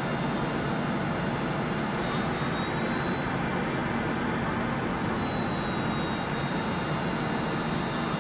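Cessna 208 Caravan's turboprop engine running steadily at low power as the plane taxis, heard inside the cockpit as an even drone with a faint thin high whine over it.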